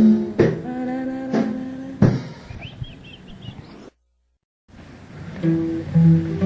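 A samba band's closing chords, with guitar and accented drum hits, ring out and fade at the end of a song. The recording then cuts to a moment of dead silence, and an instrument plays a few held notes.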